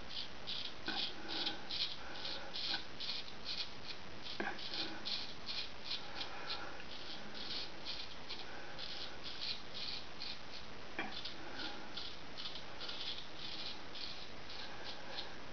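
Gold Dollar 66 straight razor scraping through lathered stubble in short, quick strokes, about two to three a second.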